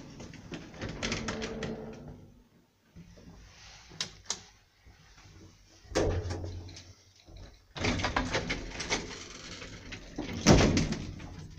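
Sliding doors of an old KONE elevator cabin moving and shutting, heard as a series of clattering knocks and thuds, the loudest near the end.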